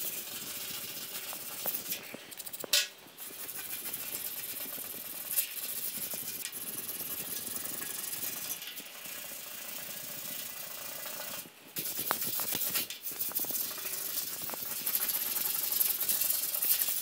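Hand block-sanding with 80-grit sandpaper on a small flat wooden block, a steady scratchy rasp across the painted steel tailgate to straighten and level its body line. There is a sharp click early on and a short break in the sanding just before the twelve-second mark.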